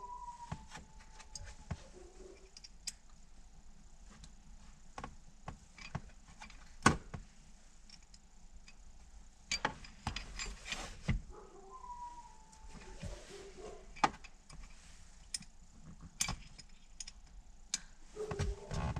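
Small metal clicks and clinks of an Allen key working the bolts that clamp a short-throw shifter handle, coming irregularly as the bolts are tightened in turn, with the loudest click about seven seconds in.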